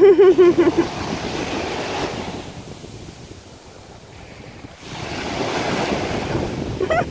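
Small waves breaking and washing up a sandy shore, in two swells: one fading over the first few seconds, the next building from about five seconds in. A person's voice sounds briefly at the very start.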